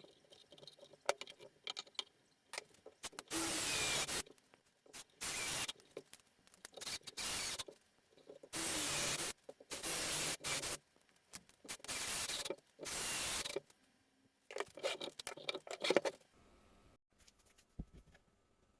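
About seven separate bursts of steady hiss, each half a second to a second long and spaced irregularly, with small clicks and taps between them.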